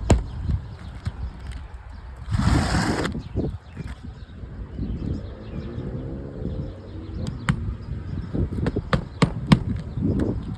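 Irregular sharp taps and knocks from hands-on work on asphalt roof shingles, with a brief hissing rush about two and a half seconds in.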